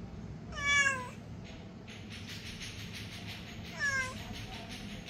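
Stray cat meowing twice, each meow falling in pitch: a longer one about half a second in and a shorter one near four seconds in.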